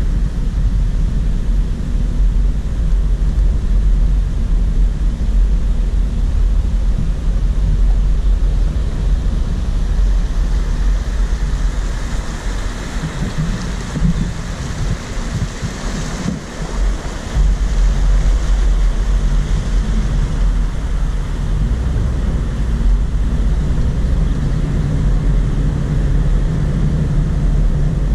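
A 2017 Toyota 4Runner TRD Pro driving slowly on a dirt trail, its engine and tyres making a steady low rumble. About twelve seconds in, water starts splashing and rushing as the truck fords a small stream. After about eight seconds the splashing ends and the low rumble returns.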